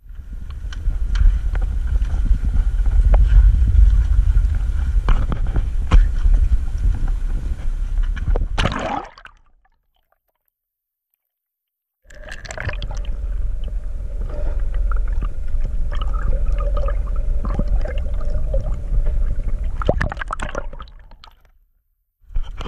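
Muffled rushing and gurgling of seawater against a submerged camera, heavy in the low end with scattered clicks and a faint steady hum. It cuts off completely after about nine seconds, returns about three seconds later, and cuts off again near the end.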